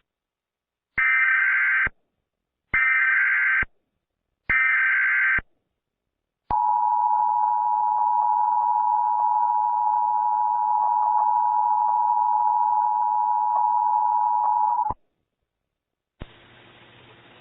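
Emergency Alert System header: three short bursts of SAME data tones, each about a second long, carrying the alert's coded header. Then the steady EAS two-tone attention signal holds for about eight seconds and cuts off suddenly.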